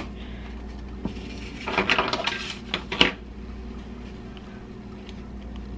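A plate and other dishes being handled, clattering: a single click, then a quick run of clatters ending in one sharp knock about halfway through.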